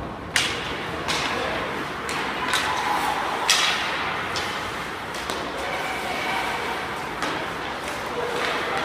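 Ice hockey play ringing around an indoor rink: about eight sharp clacks and knocks of sticks, puck and boards, each trailing off in the arena's echo.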